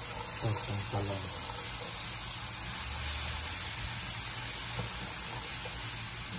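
Diced eggplant sautéing in oil in a frying pan: a steady sizzling hiss.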